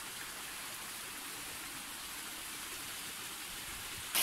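Water rushing steadily along a small earthen irrigation channel, a fast shallow stream over soil and stones. The sound jumps much louder just before the end.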